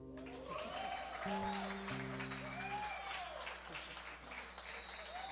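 Audience applauding and cheering, with whoops that rise and fall in pitch, as the last acoustic guitar chord dies away at the start.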